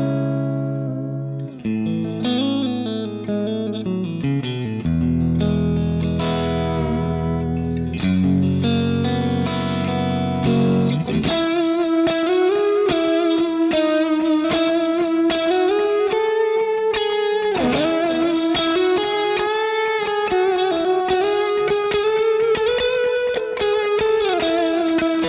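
Electric guitar played through a Line 6 Helix amp-modelling preset: clean chords and held notes for about eleven seconds, then a smooth, sustained single-note lead with string bends and vibrato.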